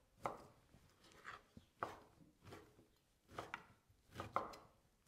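Chef's knife cutting ham into small pieces on a wooden cutting board: about nine faint, irregularly spaced knife strokes onto the board.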